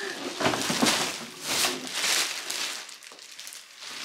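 Clear plastic wrapping crinkling and rustling as it is pulled off a children's ride-on suitcase, in irregular swishes that die down after about two and a half seconds.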